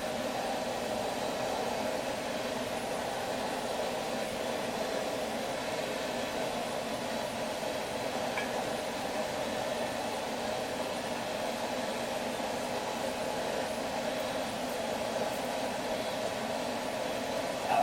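Steady, unchanging rushing machine noise, with one brief sharp sound at the very end.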